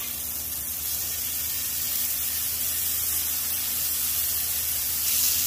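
Beef burger patties sizzling on a hot oiled steel flat-top griddle: a steady frying hiss that grows louder near the end.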